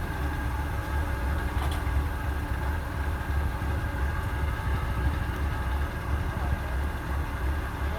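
Kubota DC-105X combine harvester's diesel engine running steadily under load as it cuts and threshes rice, a constant low drone with machinery noise over it.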